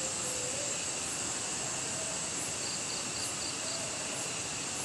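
Night insects chirring in a steady, high-pitched drone, with a short run of about five quick chirps about halfway through.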